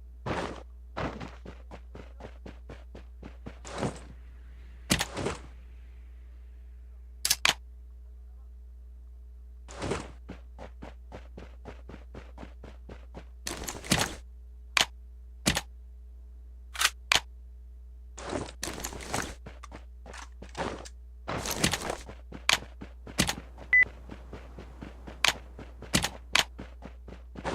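Irregular short, sharp knocks and clicks, sometimes several a second and sometimes a few seconds apart, over a steady low hum.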